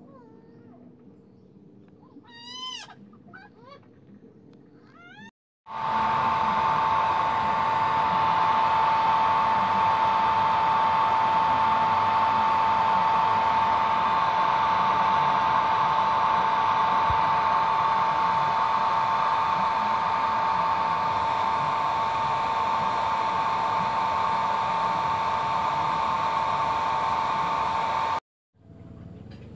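Hair dryer blowing steadily with a high, even whine, heating the back of a Samsung Galaxy A20s to soften the adhesive under its camera glass. It starts about six seconds in and cuts off suddenly near the end.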